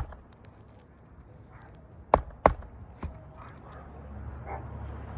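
Hammer driving roofing nails through a new asphalt shingle: a strike right at the start, two sharp strikes close together about two seconds in, then a lighter one. A low rumble builds near the end.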